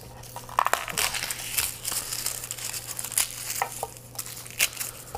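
A head of garlic being broken apart and its cloves peeled by hand on a wooden cutting board: the papery skins crackle and crinkle in irregular little snaps. A steady low hum runs underneath.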